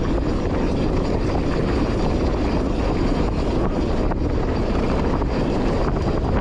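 Steady rush of wind over a GoPro's microphone as a mountain bike descends dry dirt singletrack at speed, mixed with tyres rolling on the dirt and scattered small rattles and knocks from the bike.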